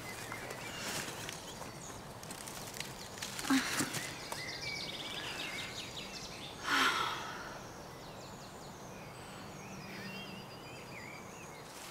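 Quiet forest ambience with small birds chirping and trilling, and a couple of brief louder rustles, the stronger about two-thirds of the way through.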